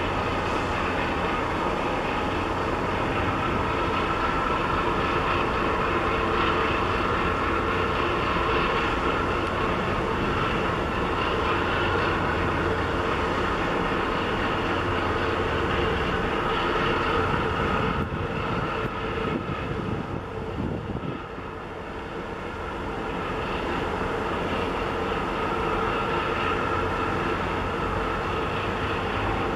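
Steady diesel engine drone from the tug and container ship passing close by, with several held tones in it. It dips briefly about two-thirds of the way through, then returns.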